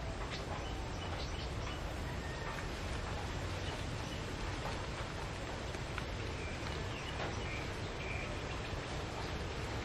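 Two cats eating dry kibble off leaf litter: faint scattered crunching clicks over a steady low outdoor rumble, with a few short high chirps in the later part.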